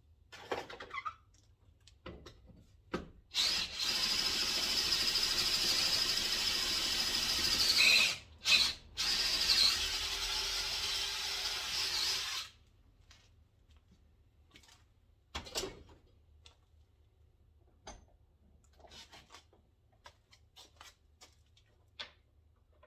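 Power drill running in two long runs of several seconds with a short pause between them, a steady high whine that dips in pitch just before the pause as the bit loads up. Scattered clicks and handling knocks before and after.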